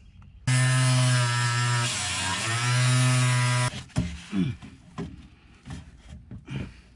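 Reciprocating saw cutting a PVC drain pipe for about three seconds, its motor pitch dipping mid-cut under load before it stops suddenly; a few light knocks follow.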